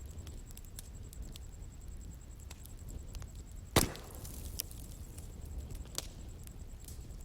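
Bonfire of burning wood crackling over a low, steady rumble, with scattered small snaps and one sharp, loud pop about halfway through.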